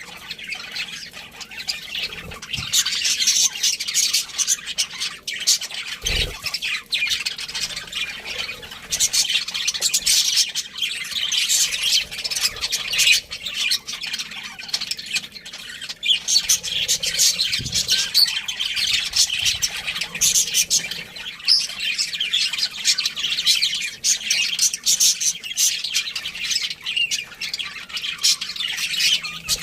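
A group of budgerigars chattering with constant warbling chirps and squawks, the happy chatter of contented budgies.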